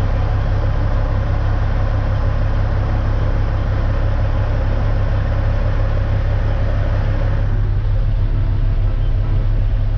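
Diesel engine of a dump truck running steadily at low speed, heard from inside the cab as a deep, constant drone. The tone shifts slightly about seven and a half seconds in.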